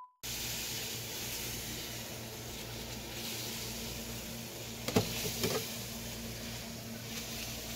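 Steady hiss with a faint low hum from a pot of coconut-milk mixture heating on an electric hot plate. A couple of sharp clinks come about five seconds in as the pot's glass lid is handled.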